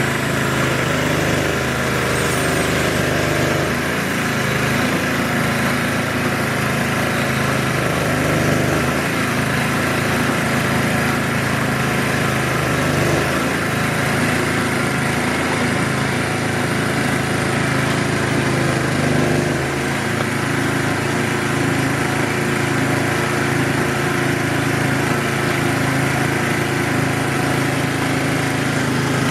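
Small gasoline engine of a 2.5-inch Proline gold dredge with hookah attachment running steadily at a constant speed, with a brief small dip about two-thirds of the way through.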